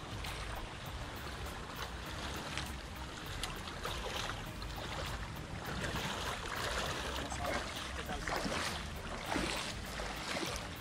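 Water splashing and dripping from a wet cast net as it is hauled in and gathered up, with sloshing in shallow water, over a steady low rumble. The splashes grow more frequent from about halfway.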